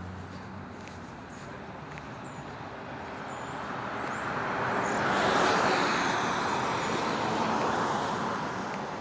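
Road traffic on wet pavement: a car's tyre hiss swells to a peak about halfway through, holds, then eases off near the end.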